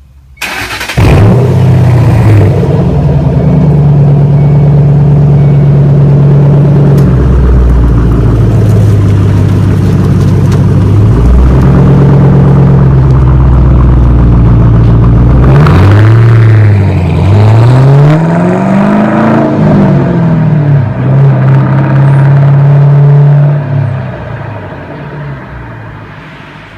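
2006 Mustang GT's 4.6-litre V8 breathing through Flowmaster Outlaw axle-back mufflers: it starts about a second in and idles loudly and steadily. Several revs rise and fall in the middle. The sound fades away near the end.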